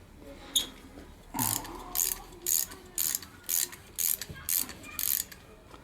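1/4-inch drive ratchet with a 12-point socket clicking in short strokes, about two a second, as the rear brake caliper's pad retaining pins are unscrewed.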